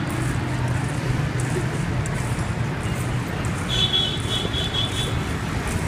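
Busy city road traffic next to a railway line, a steady low rumble of engines and tyres. About four seconds in, a high-pitched vehicle horn beeps in quick pulses for about a second and a half.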